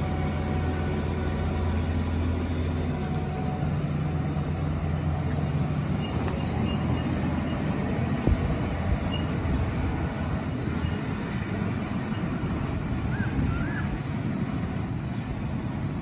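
Diesel engine of a John Deere four-wheel-drive tractor pulling a grain cart, running at a steady pitch and fading as the rig drives away. A single clank is heard about eight seconds in.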